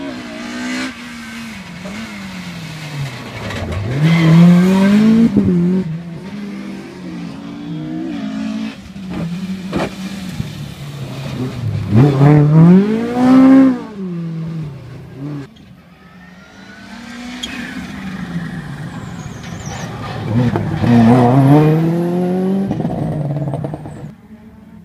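Rally car engine revving hard through the gears, its pitch climbing and dropping as it shifts. It is loudest as the car corners close by about twelve seconds in, then the engine climbs again as it pulls away.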